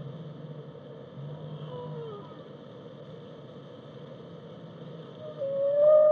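Whale song over a steady low rumble and hiss: faint calls that glide in pitch, one falling about two seconds in, then a loud, long call with overtones that starts near the end.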